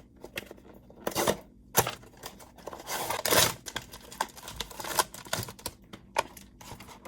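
Blind-box packaging torn open and crinkled by hand: a few short rips and sharp clicks, with the longest tear about three seconds in.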